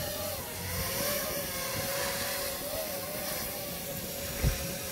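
QAV250 quadcopter hovering in altitude-hold mode: its brushless motors and propellers give a steady whine that wavers slightly in pitch, over a steady hiss. A brief low thump about four and a half seconds in.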